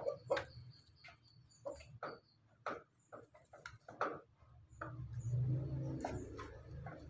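Chickens pecking at feed on the ground, a scatter of sharp irregular ticks about one or two a second. A low soft rumble comes up in the last two seconds.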